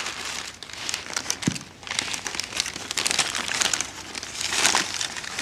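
Crinkly wrapping around stored grapes being handled: a continuous run of fine crackles and crinkles, uneven in loudness.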